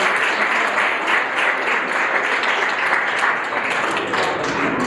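A small group of people applauding, many hands clapping together, fading out near the end.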